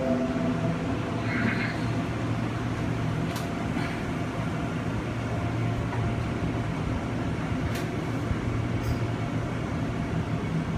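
Steady hum and rumble inside a Seoul Metro Line 9 9000-series electric train car as it runs alongside the terminus platform, with a couple of faint clicks.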